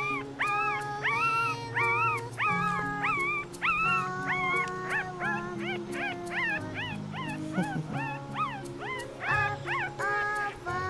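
A one-week-old Mi-Ki puppy squeaking and whimpering in a quick run of short, high calls that rise and fall in pitch, about three or four a second, over background music.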